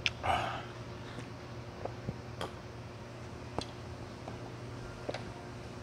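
A person taking a short, noisy sip from a small cup just after the start, then scattered sharp clicks and taps of eating at the table, over a faint steady hum.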